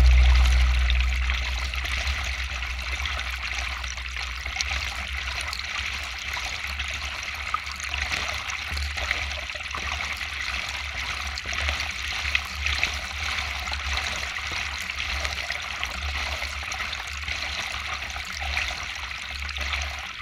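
Water trickling and splashing along the hull of a kayak moving down a river, close to the bow-mounted microphone, over a steady low rumble.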